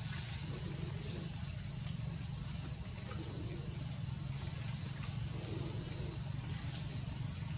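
Steady high-pitched drone of forest insects, with a faint low murmur of voices coming and going beneath it.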